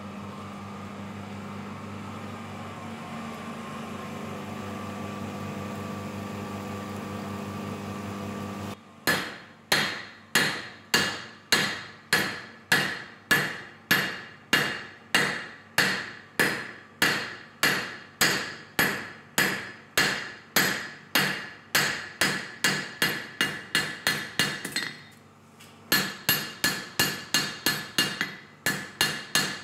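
A steady hum, then, about nine seconds in, a hand hammer beating red-hot steel held in tongs on an anvil, forging a knife blank: ringing blows about two a second. After a short break near the end the blows resume a little faster.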